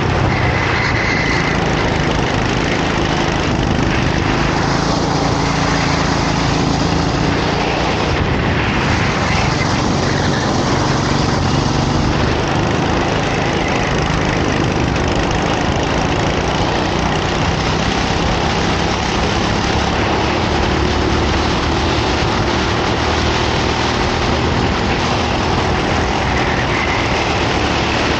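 Racing kart engine running hard, its note rising and falling as the throttle opens and closes, over a steady rushing noise.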